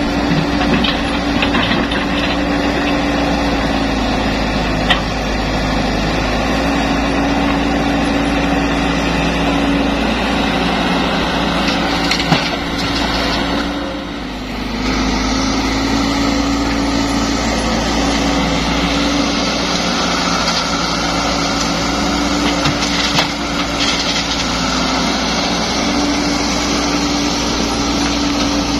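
Caterpillar E120B crawler excavator's diesel engine running steadily under work, with a strong even drone, and a few sharp knocks as the bucket works among broken rock. The drone dips briefly about halfway through.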